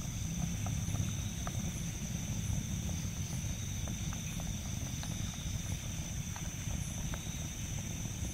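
Wood fire burning with a low rumble and scattered sharp crackles, under a steady high-pitched drone of forest insects.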